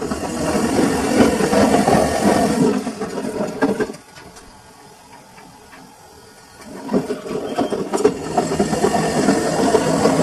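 Samsung washing machine drum tumbling a full load in the wash cycle: the motor turns the drum with clothes and water sloshing for about four seconds, stops for about three seconds, then starts turning again.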